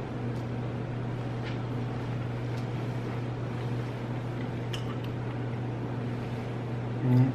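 Steady low mechanical hum, such as a fan or air-conditioning unit, with a few faint clicks. A short, louder low voice sound comes near the end.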